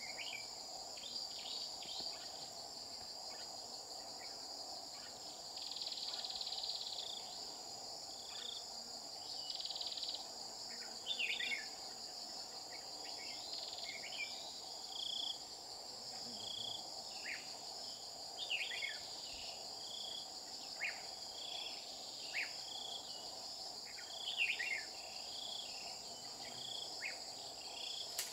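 Steady high-pitched insect drone, with short sweeping chirps of red-whiskered bulbuls scattered throughout and, through the second half, a short note repeated about once a second. The bulbul calls come from a caged decoy bird and a wild bird drawn to it.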